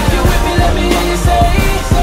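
Hip-hop beat playing without rapping: a heavy bass and regular drum hits under held synth notes.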